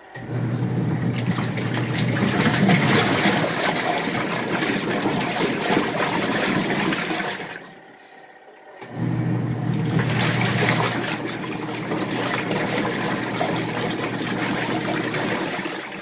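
Portable twin-tub washing machine agitating its rinse water. The motor hums under the churning and sloshing of water and clothes. It runs about seven seconds, pauses for about a second as the pulsator reverses, runs again, and stops near the end.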